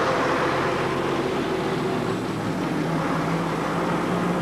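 Double-decker bus engine running steadily as the bus reverses into the garage.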